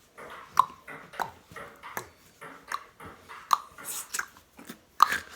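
Table tennis rally: a ping-pong ball hit back and forth, a sharp click about every two-thirds of a second.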